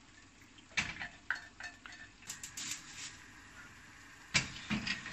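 A tuna can tapped out over a frying pan, then chopsticks knocking and scraping against the pan while stirring. There are irregular light clicks and knocks, with the sharpest one a little over four seconds in.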